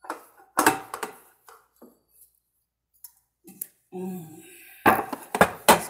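Knocks and bangs of a cake pan being handled and tapped against the counter to turn out a baked carrot cake: a cluster of knocks about half a second in, then three sharp knocks near the end.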